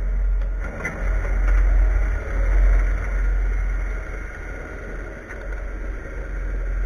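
Cat wheeled skid steer's diesel engine running with a heavy low rumble, its level swelling and easing without stopping.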